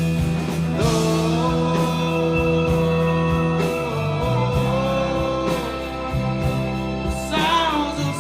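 Live rock band playing between sung lines: drums, bass and guitars, with a long held note over them through the middle.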